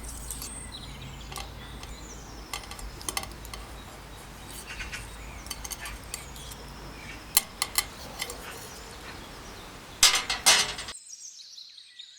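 Cutlery clinking and scraping on a plate: scattered light clicks, with a louder cluster of clinks near the end before the sound cuts off suddenly.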